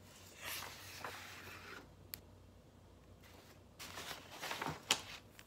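Plastic sleeves of clear stamps rustling as they are handled, in two short scratchy bouts, with a sharp click a little after two seconds in.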